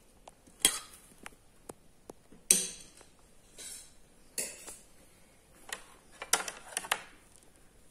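Spoons clinking against ceramic serving bowls: a string of sharp clinks with a short ring, several in quick succession near the end.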